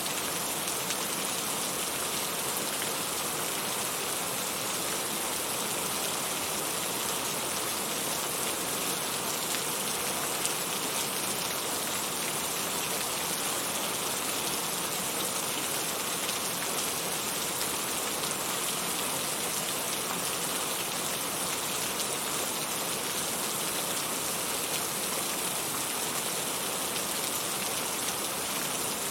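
Heavy rain falling steadily, a dense even hiss of drops on surfaces with no letup.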